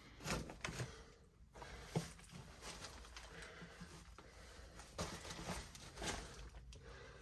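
Faint, irregular footsteps and knocks on a bare floor, with a sharper knock about two seconds in.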